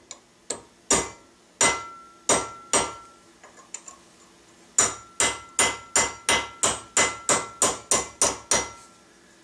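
Small hammer tapping a ramrod thimble over a steel mandrel in a vise, working the metal into shape: five taps about half a second apart, a short pause, then a quicker run of about a dozen, with a light metallic ring between strikes.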